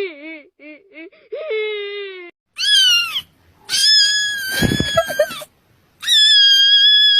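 A cat yowling: a low, wavering, warbling call for about two seconds, then three long, high-pitched screaming cries, each breaking off suddenly.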